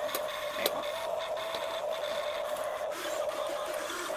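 Electric gear motors of Huina RC excavators whining steadily as the booms and buckets move, with a few small clicks and one sharper click under a second in.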